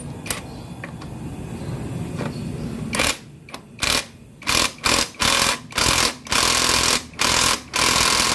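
Cordless impact wrench on a scooter's rear axle nut, hammering in short bursts that start about three seconds in and grow longer toward the end.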